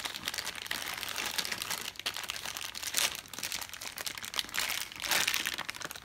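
Plastic packaging crinkling and rustling as it is handled, with irregular crackles and louder bursts about halfway through and near the end.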